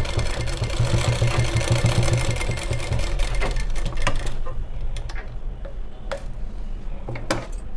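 Sewing machine running in a fast, even burst of stitching through layered blouse fabric for about three seconds, then stopping. A few light clicks follow as the work is handled.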